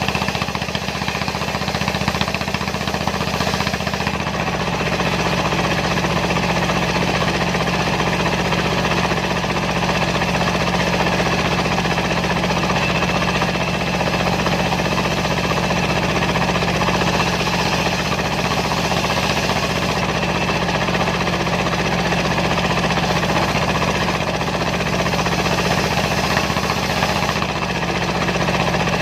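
Dongfeng single-cylinder diesel engine running steadily under load, with a knocking beat, driving a homemade circular sawmill used to rip sengon logs.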